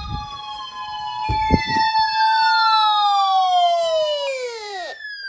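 Siren-like electronic tones: several pitches held and slowly gliding downward, then sweeping steeply down and cutting off about five seconds in. A couple of low thumps come about a second and a half in.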